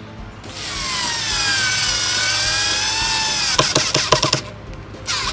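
Cordless drill run into a wooden board: the motor's whine sinks in pitch as it bites, rises slightly and stops, then comes a quick run of clicks and knocks, and a second short burst of the drill near the end.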